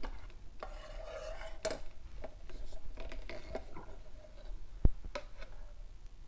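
Wire whisk scraping and stirring through thick egg-yolk salad dressing in a stainless steel saucepan, in irregular strokes, with one sharp click about five seconds in.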